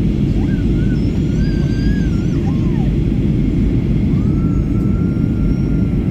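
Steady low rumble of a Boeing 737-800's CFM56 jet engines and airflow, heard inside the cabin during the descent toward landing.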